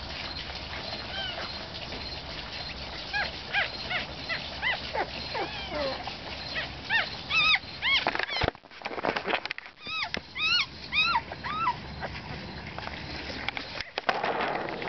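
One-week-old puppy squealing in many short, high cries that rise and fall, bunched from about three to twelve seconds in. A sharp click comes about halfway through, and there is handling rustle near the end.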